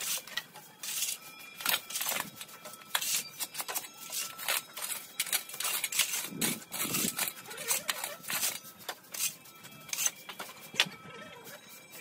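Stiff brooms sweeping and a shovel scraping up leaves and broken rubble on hard ground, in quick irregular strokes.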